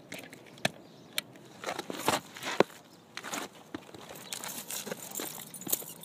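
Irregular clicks, scuffs and crunches of handling a clamp meter's test leads and the camera while stepping across asphalt roof shingles, with the sharpest click about two and a half seconds in.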